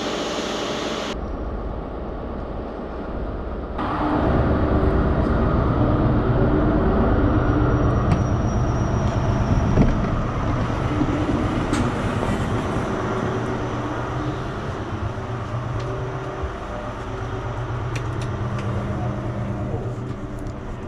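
Diesel train engine running, a steady low drone with several held hum tones, louder from about four seconds in.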